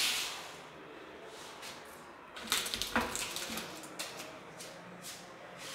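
An MDF kitchen cabinet door being handled and pulled open: a cluster of knocks and clicks partway through, then a few lighter clicks.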